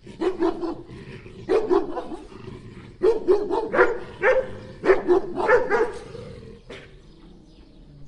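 A dog barking in quick runs of several barks, with short pauses between the runs. The barking stops about two-thirds of the way through.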